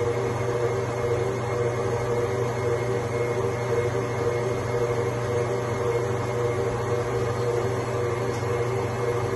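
Steady hum of an electric kitchen appliance's motor or fan running without change, a constant whirring drone with a few fixed tones over a noisy rush.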